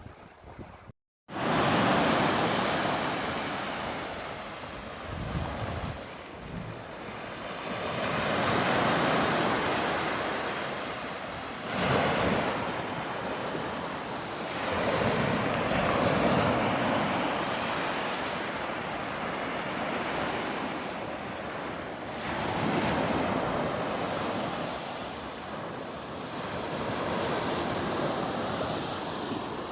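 Sea waves breaking and washing ashore, swelling and fading every few seconds, after a brief cut to silence about a second in.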